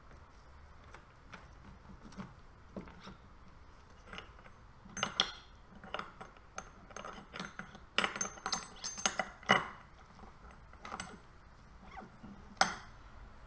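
Steel gears and shafts of a Formula Ford gearbox clinking and knocking against each other as they are fitted together by hand. The clicks come in scattered handfuls, busiest a little past the middle.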